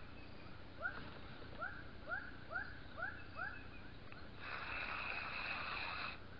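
An animal calling in a series of short rising chirps, about two a second, followed by a harsh, steady hiss of a little under two seconds near the end.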